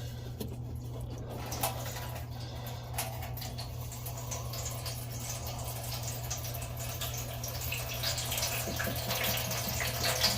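Water running and dripping out of a Whirlpool washing machine's drain filter housing as the filter is opened, growing steadily louder after a few seconds, with a few small clicks and knocks. A steady low hum underneath.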